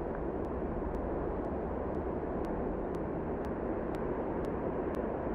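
Steady rushing noise with faint high ticks about twice a second.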